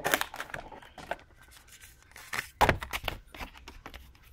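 Rustling and bumping of packaging as a hand rummages inside a cardboard box, loudest about two and a half seconds in.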